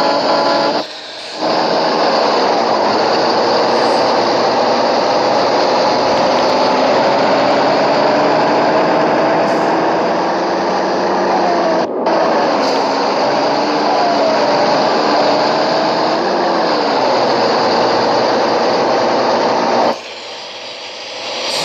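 A motor running steadily, its pitch drifting slowly up and down, with brief drops in level about a second in and again near the end.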